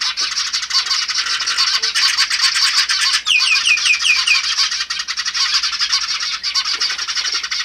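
Dense, unbroken chirping and chattering of several birds. A little past three seconds in, a quick run of about six falling notes stands out.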